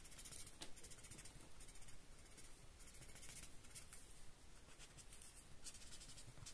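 Felt-tip marker scratching over paper in a run of short, quick shading strokes, faint.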